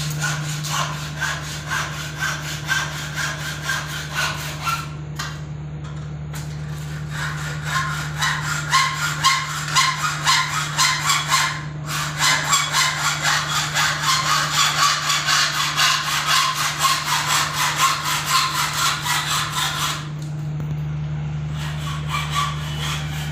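Hand sawing, rhythmic back-and-forth strokes at about three a second, with short pauses about five and twelve seconds in; the strokes stop about twenty seconds in. A steady low hum runs beneath.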